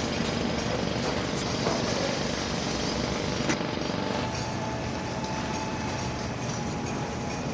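Steady, dense din of a skyscraper construction site, with faint thin squeals and a single sharp knock about three and a half seconds in.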